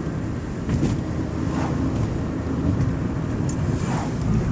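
Steady road and engine noise of a moving car, heard from inside the cabin, a low even rumble with a few faint short sounds over it.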